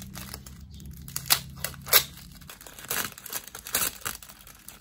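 Plastic film wrapper of a convenience-store onigiri being pulled open, crinkling and tearing in irregular sharp crackles, with the loudest snaps about a second and two seconds in and another flurry near the end.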